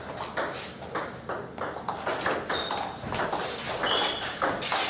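Table tennis rally: the celluloid ball clicking off the players' rubber-faced paddles and the table top in a quick series of light, sharp hits.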